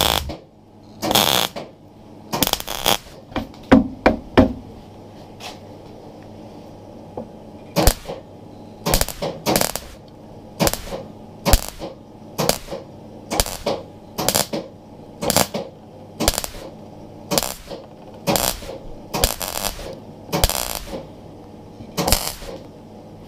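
MIG welder filling holes in a steel panel with short welds: a string of brief bursts of welding, about one a second, with a pause of a few seconds early on.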